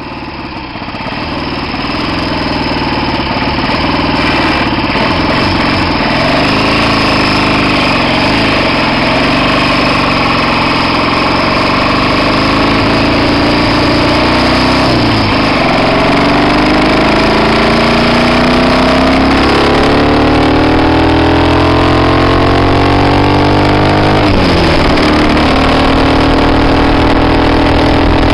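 1967 Triumph T100's 500 cc parallel-twin engine running. The revs climb steadily for several seconds past the middle, then drop sharply, with a shorter dip a little earlier. The owner is chasing a misfire that shows in third and fourth gear.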